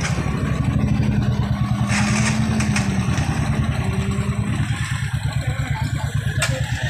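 A small engine idling with a rapid, steady low throb, and two brief clicks over it.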